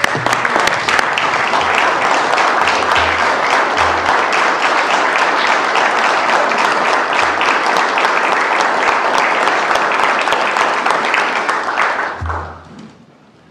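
A roomful of legislators giving a standing ovation, with loud, sustained clapping in congratulation that dies away about twelve seconds in.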